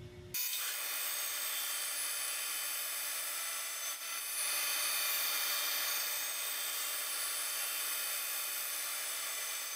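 Band saw cutting thin strips from a wengé board, sped up five times, so it comes out as a steady high-pitched hiss and whine with no low end. It starts suddenly about a third of a second in.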